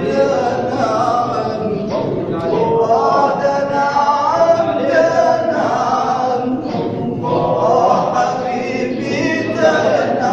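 A group of men singing together in Sufi devotional chant (inshad), several voices on a sustained, wavering melody with no break.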